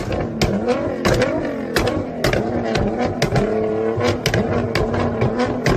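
Nissan GT-R R35's twin-turbo V6 running through its exhaust: a steady low drone with wavering pitch, broken by many sharp cracks at uneven spacing, several a second.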